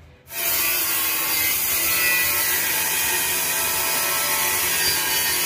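Electric angle grinder cutting a ceramic tile: a loud, steady grinding that cuts in suddenly a moment in and runs on without a break.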